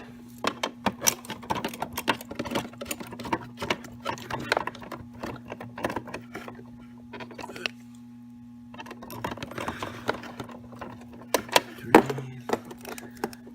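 Screwdriver undoing the small screws of a plastic receiver cover, making rapid irregular clicking and rattling that stops for about two seconds in the middle and then resumes. A steady low hum runs underneath.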